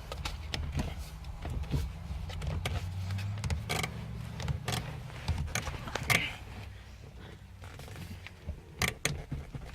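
Steering wheel being yanked and rocked by hand on its column shaft, giving irregular clunks, knocks and rattles as it stays stuck. A low hum sits under the first half and fades out.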